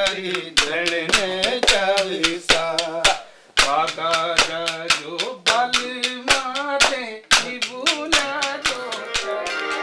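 A group of men singing together with a wavering, ornamented melody, keeping time with steady hand claps at about three a second. Both break off briefly a little after three seconds in.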